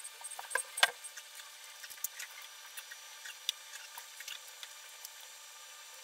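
Scattered small clicks and light scraping of a hand screwdriver working the Torx T10 screws out of an iMac G4's base plate, the loudest click a little under a second in.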